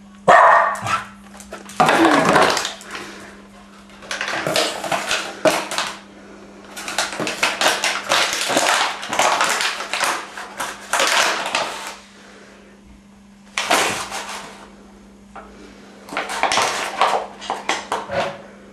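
A dog crunching and crackling an empty plastic bottle with its mouth and pushing it around on a hard floor, in repeated bursts. There are two loud barks in the first two seconds.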